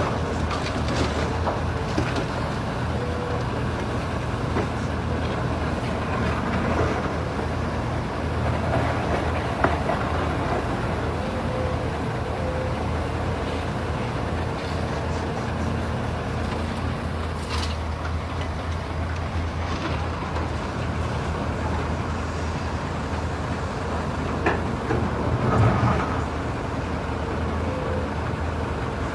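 Engine of heavy earthmoving machinery running steadily, a low drone with a few brief knocks and a louder swell near the end.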